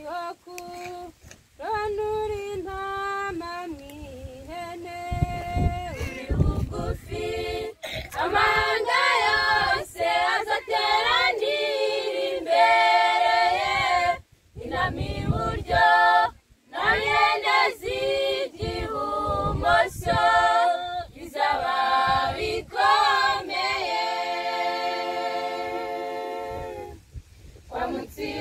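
A cappella choir of young women singing a Christian hymn in Kinyarwanda, several voices together without instruments, with a long held chord a few seconds before the end.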